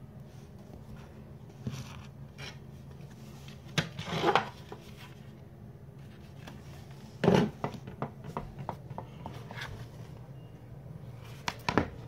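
Handling noise of toys being picked up and shown: scattered knocks, rubbing and rustling, with louder clatters about four seconds in, a little after seven seconds, and near the end, over a steady low hum.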